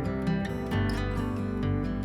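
Background music: acoustic guitar picking and strumming at an even, gentle pace.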